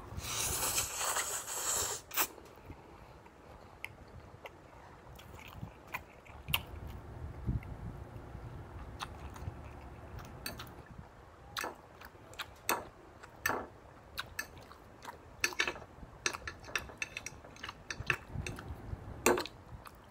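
A man slurping a large forkful of instant noodles into his mouth with a loud hiss for about the first two seconds, then chewing, with wet mouth smacks and short sharp clicks scattered through the rest.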